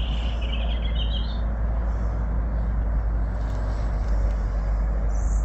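Boat engine running steadily at low revs, a deep even hum. Small birds chirp briefly in the first second or so and again near the end.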